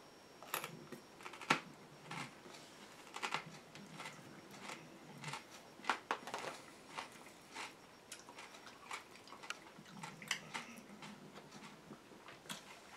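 A man eating: chewing and small mouth sounds, with irregular sharp clicks of a metal spoon against a plastic microwave-dinner tray.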